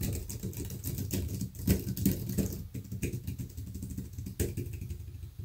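Typing on a V-Wing foldable ergonomic Bluetooth keyboard: a quick, uneven run of light clicks and taps from its stiff, non-mechanical plastic keys, over a low steady rumble.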